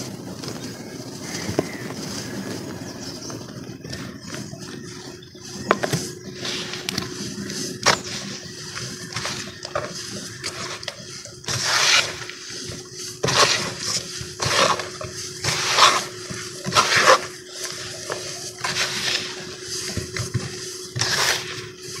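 Damp cement being crumbled by hand and dropped in lumps into a plastic basin holding water: gritty crumbling, then from about halfway a run of louder crumbling falls and wet splashes roughly once a second. A faint steady hum runs underneath.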